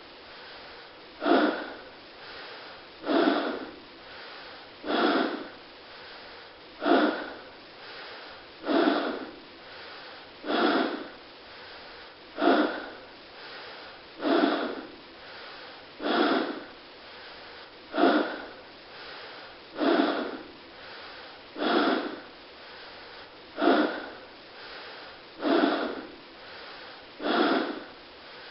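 Forced human breathing: a hard, noisy breath about every two seconds in an even rhythm, each one rising sharply and fading, with a faint steady hiss between them.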